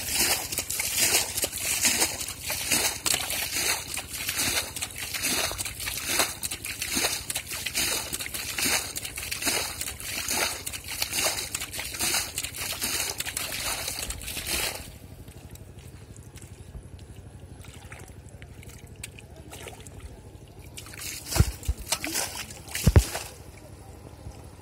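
Shallow muddy water being splashed and sloshed by hand, in even strokes about twice a second, stopping about fifteen seconds in and leaving a faint trickle. Two dull thumps come near the end.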